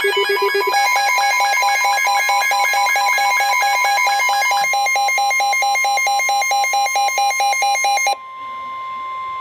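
Emergency alert alarm: rapid electronic beeping, about four beeps a second, in several pitches that change pattern about a second in and again near five seconds in. Under it runs a steady high alert tone, which carries on alone after the beeping stops about eight seconds in, signalling a warning about to be read.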